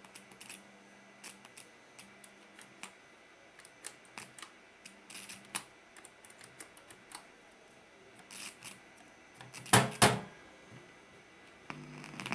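Scattered small clicks of push buttons being pressed on an old integrated amplifier's front panel, with a loud double knock about ten seconds in. A steady low hum starts near the end.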